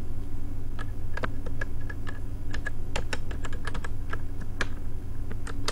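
Computer keyboard keys clicking in quick, uneven typing, over a steady low hum.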